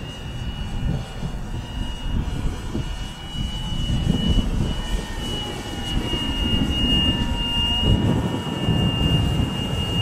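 Motor of a radio-controlled Piper Cub model flying overhead, a steady high-pitched whine that wavers a little. Gusty wind buffets the microphone underneath, heavier in the second half.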